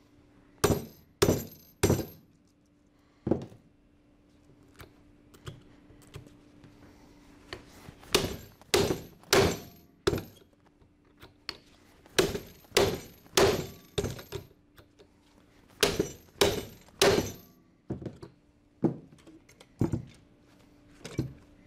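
Sledge hammer striking a five-prong rivet driver in a belt-fastener applicator tool, driving rivets through the hinged fastener plates and the conveyor belt: sets of three or four hard metallic strikes about half a second apart, with single lighter knocks between. The third hit of a set is where the rivets bottom out in the tool's base.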